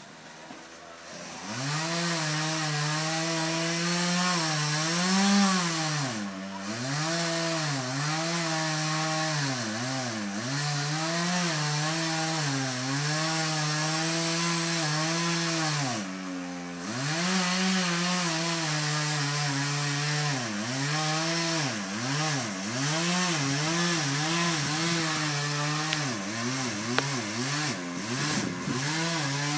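Chainsaw cutting into a tree trunk. It revs up about a second in, then runs at high speed, its pitch dipping and recovering again and again as the chain loads up in the wood. It eases off the throttle briefly twice.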